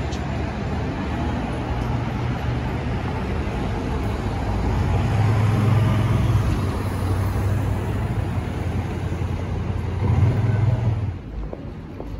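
Street traffic: cars and vans driving past, engines humming over tyre noise. It swells about halfway through and again shortly before the end, then drops away.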